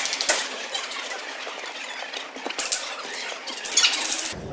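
Table tennis balls clicking off bats and tables: many light, irregular clicks.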